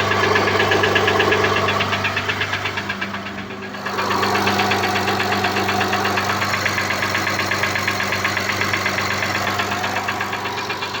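Honda/Acura engine running with a fast, rhythmic knocking; the knock is what the owner is recording. The sound dips briefly about three seconds in, then carries on steadily.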